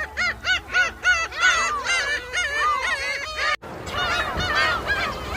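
A flock of birds calling, many short rising-and-falling calls overlapping in quick succession. About three and a half seconds in, the sound breaks off for an instant and similar calls carry on over more background noise.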